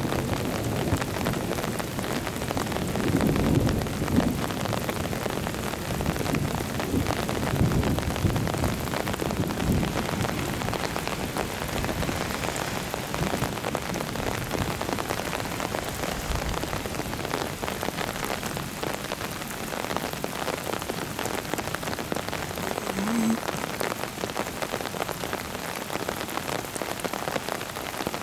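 Steady hiss of water and rain around a rocky mountain stream starting to rise in a flash flood after a heavy thunderstorm. A few low rumbles come through in the first ten seconds.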